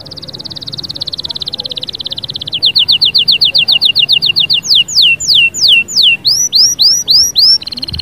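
Domestic canary singing a varied song: a fast trill, then a run of louder repeated chirps, a few slow falling whistles and rising curved notes, and another rapid trill near the end.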